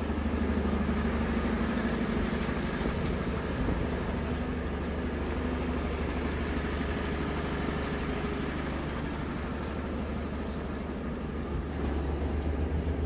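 Sewer-cleaning vacuum truck running steadily, a low engine hum that gets louder near the end.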